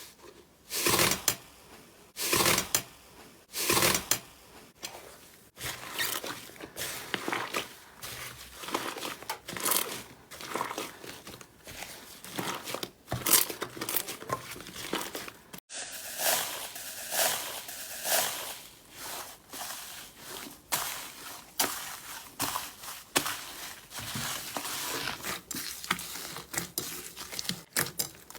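Slime being pressed and worked by hand: a string of short, sharp sticky pops and clicks, spaced about a second apart at first, then coming thick and fast. The sound cuts abruptly twice, once about six seconds in and again midway.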